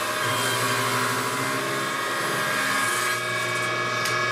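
Table saw running with a freshly hand-sharpened carbide-tooth blade, cutting through a 1½-inch-thick board of hard maple. The motor hum and cutting noise hold steady, and the blade goes through fast without bogging down, the sign that the resharpened teeth are cutting well.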